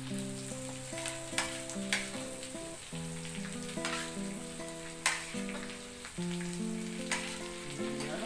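Carrot pieces and spices sizzling in hot oil in a pan while a spatula stirs them, with a few sharp scrapes and knocks against the pan. Background music of sustained notes plays underneath.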